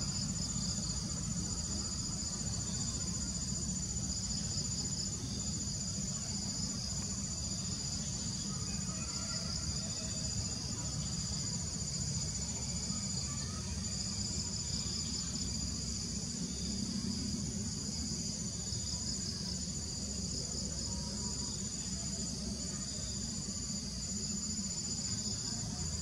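Steady insect chorus: a continuous high-pitched whine with a pulsing, trilling buzz just below it, unchanging throughout, over a low rumble.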